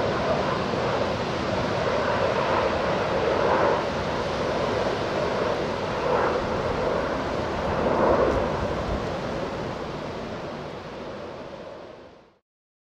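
Jet engines of a Boeing 737-800, CFM56-7B turbofans, running as the airliner rolls out on the runway after landing: a steady roar that fades over the last few seconds and cuts off abruptly near the end.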